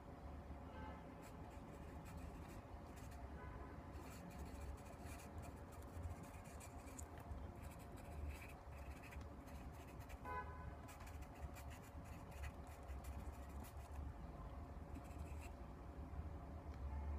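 Faint scratching of a pen on paper as someone writes, in short strokes that come in bursts with brief pauses between them.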